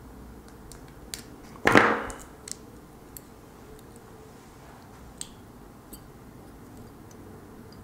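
Small clicks and taps of LED leads being bent by hand on a tail-light circuit board, with one louder knock and short rattle about two seconds in.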